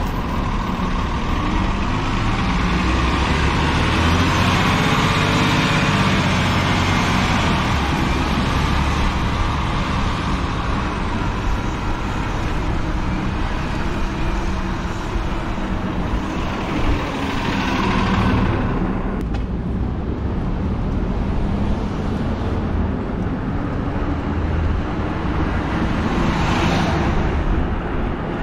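City road traffic, cars and trucks, heard from a moving e-bike as a steady mix of engine and tyre noise. Vehicles pass close about two-thirds of the way through and again near the end.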